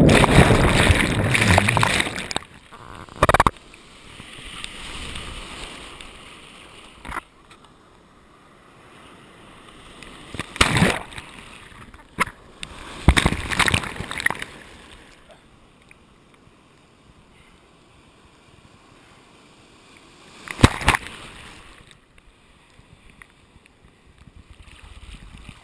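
Sea water churning and splashing over a camera at the surface of the surf: a loud rush of water as it goes under at the start, then short splashes about 3, 11, 13–14 and 21 seconds in, with quieter water sound between.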